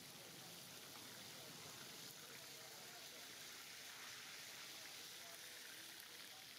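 Fish deep-frying in a large wok of hot oil: a faint, steady sizzle.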